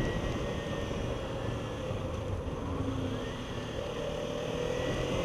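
Kawasaki Ninja 300's parallel-twin engine running at low speed in slow traffic, under steady wind and road noise. Its pitch rises slightly near the end.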